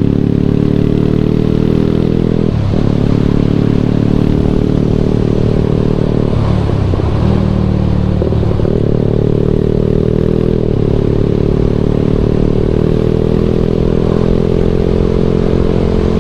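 Yamaha Exciter motorcycle's single-cylinder engine running under way, its pitch climbing slowly and dropping back at gear changes about three seconds in and again around seven to eight seconds in.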